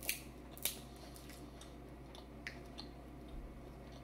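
Close-up eating of a seafood boil: a few sharp clicks and small cracks of food and shells being handled and bitten, the two loudest in the first second.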